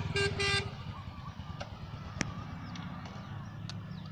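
A vehicle horn giving two short toots in the first half second, followed by a low engine running steadily, with a few sharp clicks over it.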